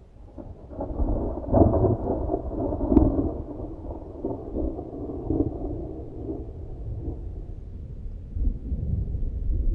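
Thunder: a low rolling rumble that starts out of silence, peaks with a sharp crack about three seconds in, dies down, then swells again near the end.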